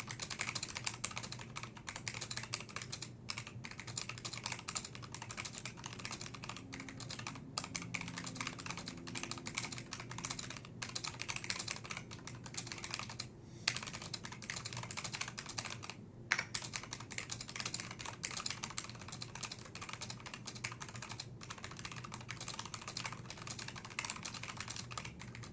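Zentec 8392 keyboard with stack pole switches and thick double-shot keycaps being typed on: a steady run of quick keystrokes with a few short pauses, over a faint low hum.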